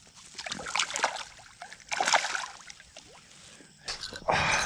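Pond water splashing and sloshing in a few short bursts as a hand lets a largemouth bass back into the water.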